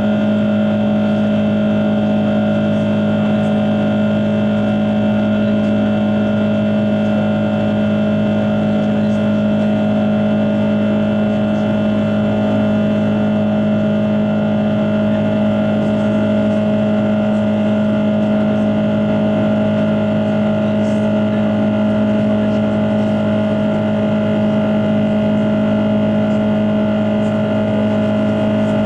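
Cabin noise of an Airbus A330-300 with Rolls-Royce Trent 700 turbofans running steadily during the climb after takeoff: a constant hum of several steady tones over the rush of air along the fuselage, unchanging throughout.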